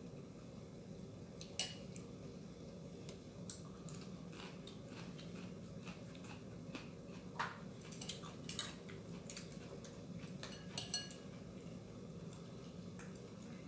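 Chopsticks and spoons clinking and tapping now and then against bowls and a steel hotpot, over a steady low hum.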